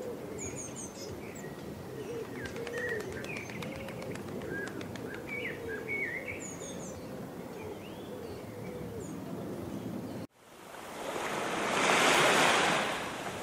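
Ambient birdsong: small birds chirping while doves coo. About ten seconds in it cuts off abruptly and the rush of a wave swells up and fades, the loudest part.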